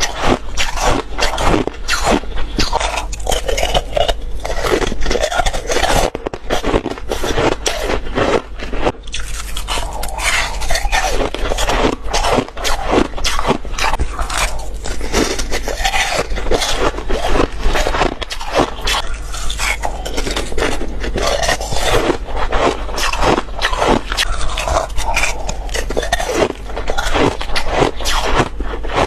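Close-miked biting and crunching of ice, a dense run of sharp crunches coming several times a second, with a couple of brief lulls.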